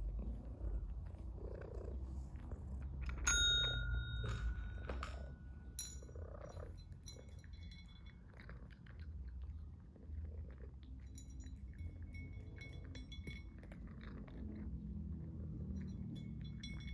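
Cat eating from a raised ceramic bowl, with small clicks and clinks of food against the bowl over a low steady purr. A little over three seconds in, a desk-style pet call bell dings once and rings for about two seconds.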